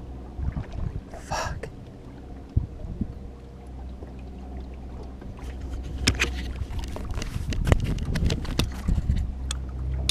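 Low, steady hum of the small aluminium fishing boat's motor pushing it slowly along, with wind on the microphone. About two-thirds of the way through, a run of knocks and rattles sets in as the camera is bumped and moved against the gear in the hull.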